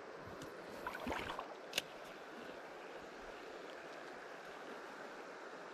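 River current flowing steadily with a continuous rushing wash. About a second in comes a brief louder rustle, and just after it a single sharp click.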